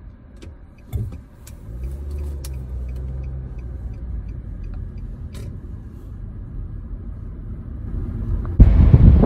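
Car engine and road hum heard from inside the cabin as the car drives slowly, the engine note steady after a single knock about a second in. Near the end a loud rush of wind on the microphone cuts in suddenly.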